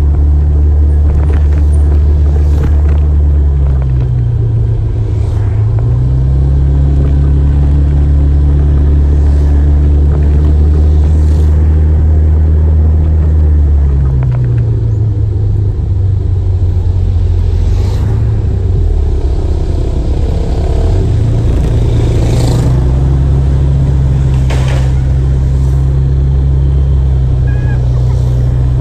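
Motorcycle engine running on the move, heard from on board. Its low hum drops and then rises again several times as the bike eases off and picks up speed.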